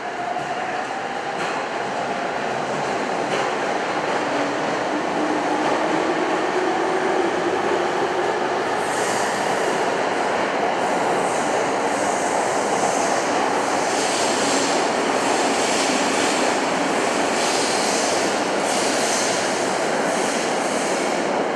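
Electric train in an underground station tunnel, its running noise building as it moves, with a faint motor whine gliding upward in pitch as it gathers speed. From about nine seconds in, high-pitched wheel squeal and rattle join in.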